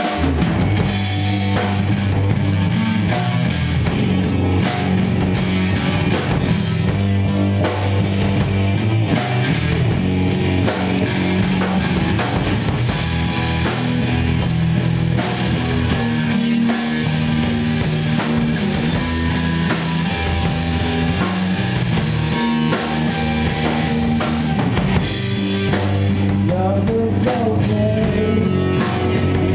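Live rock band playing: distorted electric guitars, bass guitar and a drum kit keeping a steady beat. The drums drop out briefly about 25 seconds in, then the band comes back in.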